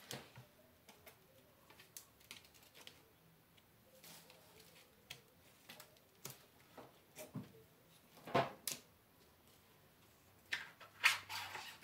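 Scattered small clicks and taps of plastic trim and clips being pried and snapped off an RCA LCD TV panel, with louder knocks about eight and a half seconds in and again near the end.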